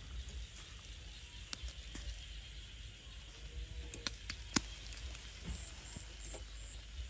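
Crickets chirring in one continuous high tone, with a few sharp clicks of metal forks against a wire grill grate as meat is turned, the loudest about four and a half seconds in.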